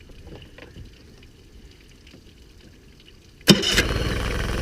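A 1993 Yamaha 9.9 hp twin-cylinder four-stroke outboard starts suddenly about three and a half seconds in and settles into a steady idle. It is running again after a head gasket replacement.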